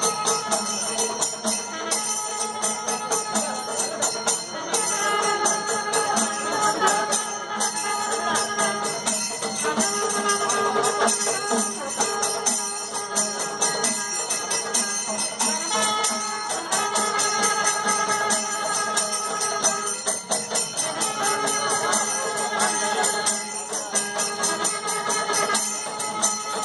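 Music with a fast, steady jingling percussion beat under a melody that comes in held phrases of a few seconds, repeating again and again.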